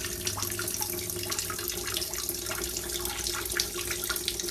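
Running water, like a tap or sink filling, with scattered small splashes and crackles over a steady hum.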